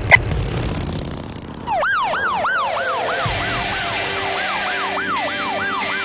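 A sharp click at the very start, then a low vehicle rumble. About two seconds in, a police siren starts yelping: a fast rising-and-falling whoop about three times a second. Steady musical tones come in beneath the siren.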